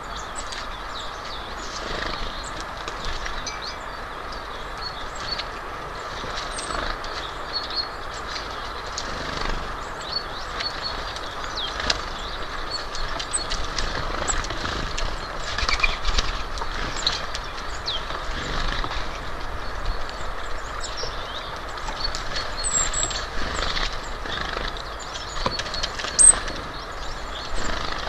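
Outdoor ambience at a woodland bird feeder: a steady rushing background with scattered short, high chirps of small birds and frequent small taps and scratches, with one sharper knock near the end.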